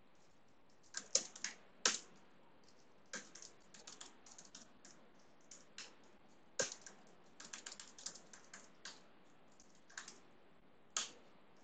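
Typing on a computer keyboard: faint, irregular runs of key clicks broken by short pauses, with a few keystrokes louder than the rest.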